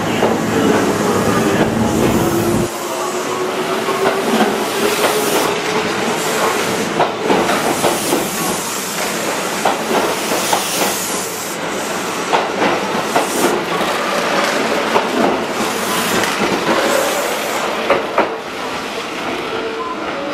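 Kintetsu electric train moving through the station, its wheels clattering over rail joints and points. A motor whine rises slowly in pitch over the first ten seconds or so as it picks up speed.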